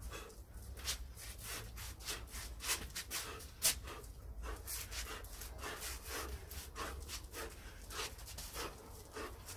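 Quick, irregular short hissing strokes, two or three a second, from a person shadowboxing: sharp breaths and footwork on patio tiles in time with the punches and ducking. One stroke about a third of the way in is the loudest.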